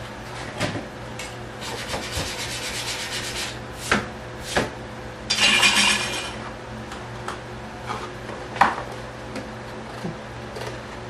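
Rubbing and scraping as foam airplane parts are handled and worked on a bench, in two stretches, the second shorter and louder, with several light knocks and taps between them.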